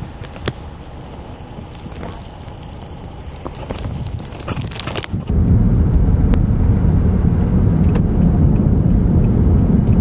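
Faint street and traffic noise with a few light clicks. After a cut about five seconds in, a loud, steady, low rumble of a car driving on a snow-covered road, heard from inside the vehicle.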